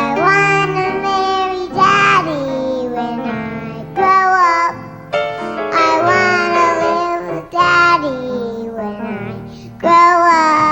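A child's voice singing a song over musical accompaniment, in phrases of long held notes that waver in pitch.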